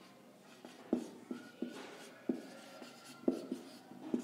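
Felt-tip marker writing on a whiteboard: a series of short, irregular pen strokes and taps, with a faint thin squeak in the middle.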